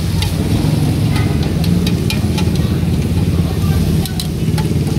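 Metal serving spoon clinking and scraping on cast-iron sizzling plates of pork sisig, in short sharp ticks, over a loud, steady low engine rumble from street traffic.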